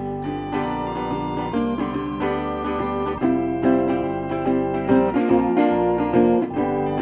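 Background music: strummed acoustic guitar over a bass line with a steady beat.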